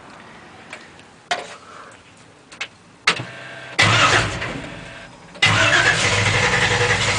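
A 383 stroker small-block V8 being started: a few clicks, then a short stretch of cranking. About four seconds in the engine catches with a burst of revs that dies away. From about five and a half seconds it runs loud and steady.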